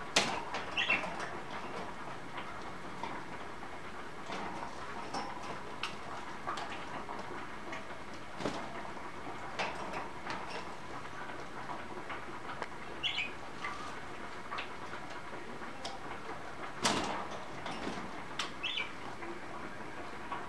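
Budgerigars in their cage around a bath: scattered clicks and rustles, with three short chirps, about a second in, about two-thirds through, and near the end.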